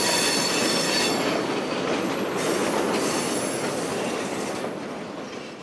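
Freight train rolling along: a steady noise of the wagons on the track, with a high metallic squeal from the wheels on the rails. The sound fades away over the last second.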